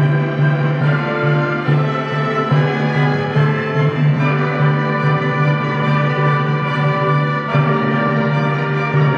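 Student orchestra of strings and clarinets playing sustained chords over a steady low note, with violins and cellos bowing.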